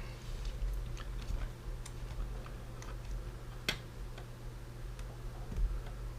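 Scattered small clicks and taps of fingers handling the parts of a Sony DCR-TRV330 camcorder while pressing a cable into its connector slot, with one sharper click a little past halfway, over a steady low hum.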